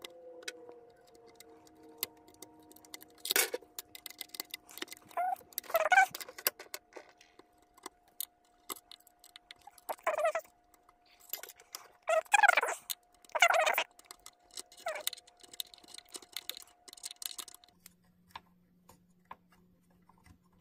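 Metal clicks and clinks as a Kenmore sewing machine's needle plate and shuttle-area parts are handled and fitted back on, coming in about six short clusters spread over the stretch.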